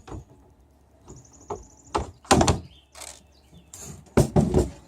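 A series of knocks and clunks from gear being handled aboard a small sailboat, with the loudest strikes near the middle and near the end. A faint, high, warbling squeak sounds about half a second in.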